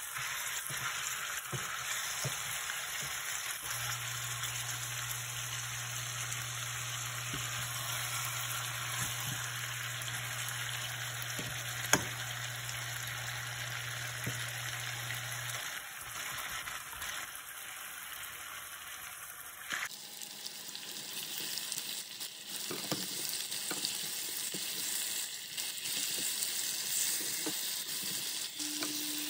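Chicken drumsticks sizzling as they fry in a stainless steel pan, turned and stirred with wooden spatulas that scrape and knock against the pan. There is one sharp knock about twelve seconds in.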